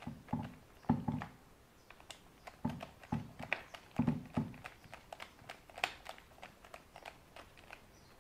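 Hands working on RC car parts: a string of irregular small clicks and light knocks, the sound of plastic parts being handled and fitted.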